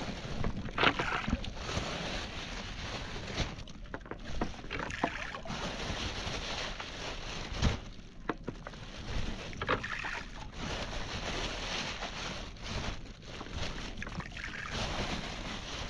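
Handfuls of groundbait, boiled peas and pearl barley, splashing into the water from a boat, about six times at irregular intervals of a few seconds, one landing with a heavier thump.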